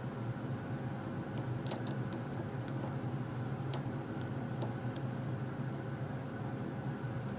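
Scattered faint metallic clicks of a lock pick lifting and setting pin tumblers in an Abus padlock core, over a steady low hum.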